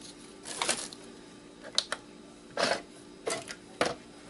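A few short clicks and clatters as small salvaged electric motors with copper windings are handled and set down, spaced a second or so apart, over a faint steady hum.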